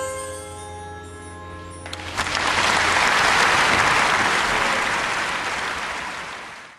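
The song's accompaniment ends on a held chord that dies away, then audience applause breaks out about two seconds in, swells and fades out at the end.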